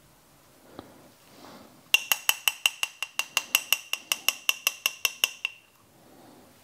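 A metal spoon stirring briskly in a small jar, clinking against its sides about seven times a second with a bright, ringing tone for about three seconds, then stopping.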